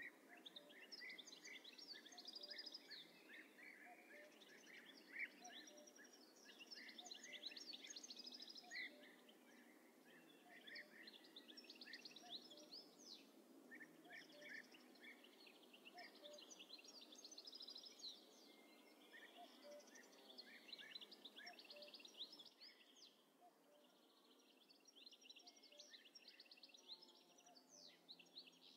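Faint outdoor birdsong: small birds chirping in quick, repeated bursts throughout, over a low background hiss.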